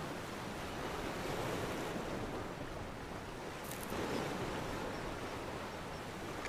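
A steady, even rushing noise with no tone or rhythm, and a faint short tick about three and a half seconds in.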